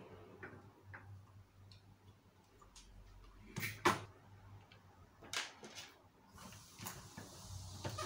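Scattered clicks and knocks of a standing fan's plastic guard being handled and worked loose, the loudest a pair of sharp clicks about four seconds in.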